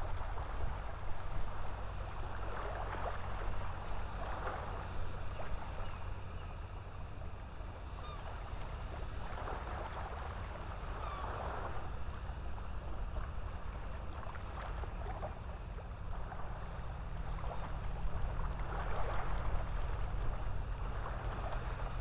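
Shoreline ambience: a steady low wind rumble on the microphone, with soft washes of water that swell and fade every few seconds.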